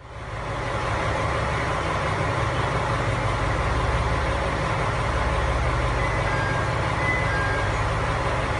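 Diesel engine of a KiHa 100 series railcar idling steadily while the train stands at the platform, a constant low hum.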